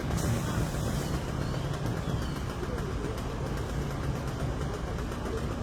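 A vehicle engine idling steadily, a low rumble.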